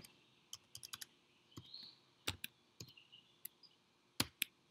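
Computer keyboard keystrokes typed slowly: a dozen or so separate sharp clicks at uneven intervals, the loudest a close pair about four seconds in.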